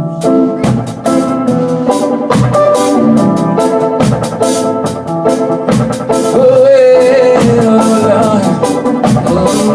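Gospel band playing with a steady drum beat and sustained keyboard or organ chords.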